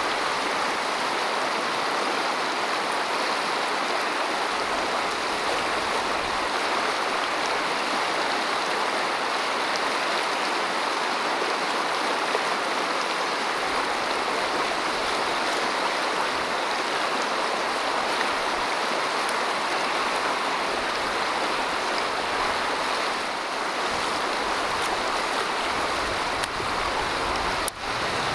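Rushing river water: a steady, even rush with a brief break near the end.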